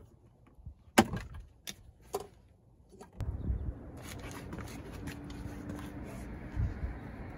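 Sharp plastic clicks and knocks as wiring connectors and trim are worked loose inside a car's center-console area. Then steady outdoor background, with footsteps on concrete and a dull thump near the end.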